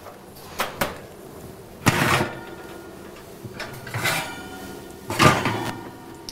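A handful of short knocks and clinks of a glass mixing bowl and hands against a glass baking dish while shredded cheese is sprinkled over enchiladas. The louder clinks, about two, four and five seconds in, ring briefly.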